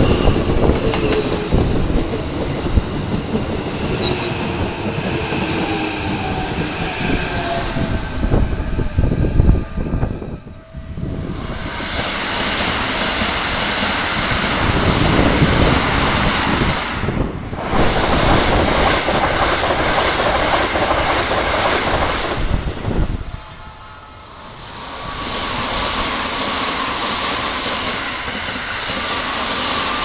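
Keikyu electric commuter trains passing a level crossing at speed, wheels clattering over the rail joints. The sound cuts to a new pass twice, about ten seconds in and again about two-thirds of the way through.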